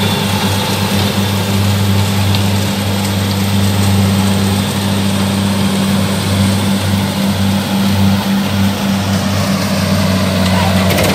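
Kubota DC70 combine harvester's diesel engine and machinery running steadily while harvesting rice, a constant low drone.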